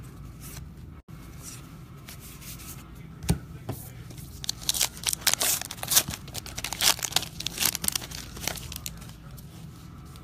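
Trading-card pack wrapper being torn open and crinkled by hand: a couple of sharp clicks, then a run of crackly tearing and crinkling from about four seconds in until near the end.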